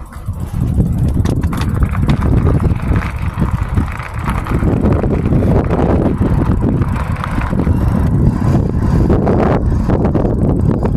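Wind buffeting the microphone with tyre and road rumble while riding an e-bike, building over the first second to a steady loud rush.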